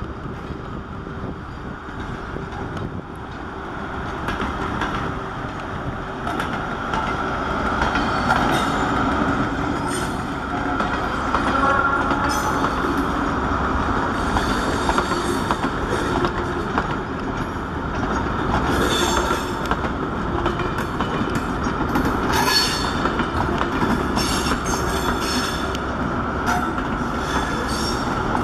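A Class 43 HST diesel measurement train passing along the track, growing louder from about four seconds in as the power car and coaches come by, with the wheels clicking repeatedly over rail joints.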